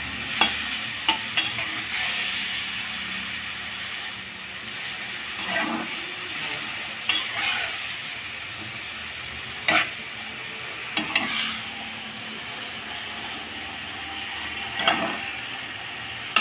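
Roasted vermicelli sizzling in a hot, oiled nonstick kadai as water goes in, stirred and turned with a steel spatula. Sharp scrapes of the spatula on the pan come every few seconds.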